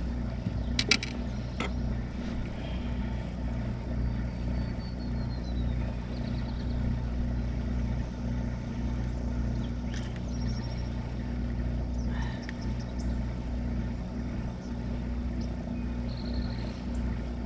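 Steady low motor hum, with a few sharp clicks and light rattles from handling tackle and a crappie being unhooked by hand.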